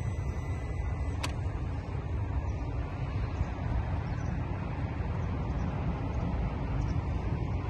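Volvo B5254T2 2.5-litre turbocharged inline five-cylinder engine running steadily, heard up close in the engine bay.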